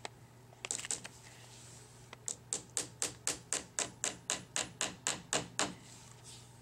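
Hammer tapping small 5/8-inch nails into the wooden wedge of a wooden beehive frame. A couple of taps come about a second in, then a steady run of about a dozen light strikes, roughly four a second.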